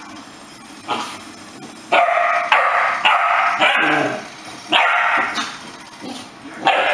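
A young yellow Labrador retriever puppy barking in short, high yips: one soft bark about a second in, then a run of about seven loud barks, each following the last after half a second to a second.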